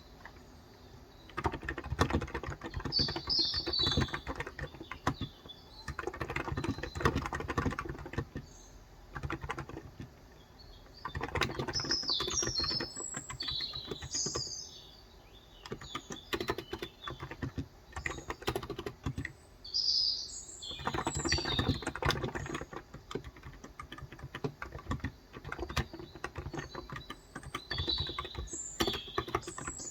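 Typing on a Cox Endeavour electrostatic capacitive keyboard with 35 g switches: fast runs of keystrokes lasting a few seconds, separated by short pauses. Birds chirp now and then in the background.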